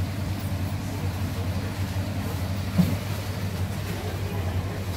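Steady low hum of a live-seafood display tank's pump and aeration, with one short knock about halfway through.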